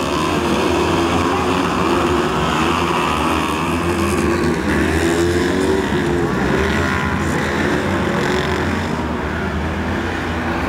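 A pack of 500 cc kartcross buggies racing on a dirt track, several engines running at once and revving up and down as they accelerate away, over a steady rumble.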